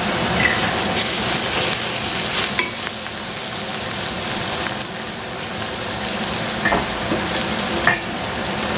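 Sliced vegetables sizzling as they fry in a stainless steel pot, stirred with a wooden spatula, with a few short taps of the spatula against the pot.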